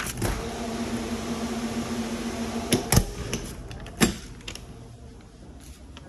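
Commercial refrigerator's fan and refrigeration unit humming steadily with a clear tone. The hum stops short, then come a few sharp knocks about three seconds in, as of the insulated door being shut, and one more about a second later.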